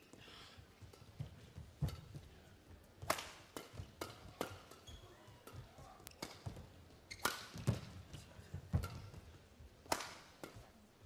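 Badminton rackets striking a shuttlecock back and forth in a fast singles rally: a string of sharp hits at an uneven pace, roughly one a second, some louder smashes and clears among softer touches.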